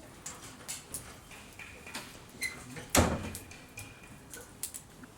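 Scattered light clicks and knocks of things being handled, with one loud thump about three seconds in.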